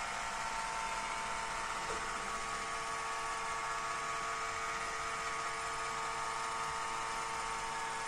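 iRobot Roomba i5 robot vacuum running as it drives across a parquet floor toward its dock: a steady whir with a few high, even tones in it.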